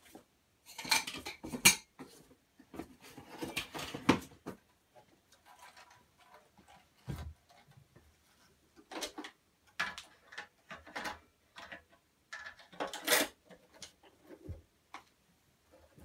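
Hoover Senior Ranger upright vacuum's plastic hose and attachments being handled with the motor off: scattered clunks, clicks and rattles, loudest about a second in and again near the end.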